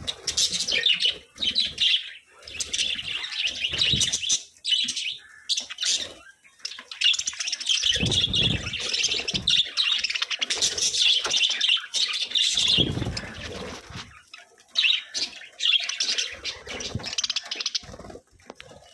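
A flock of budgerigars chattering and chirping continuously, with two brief low thumps or flutters in the middle.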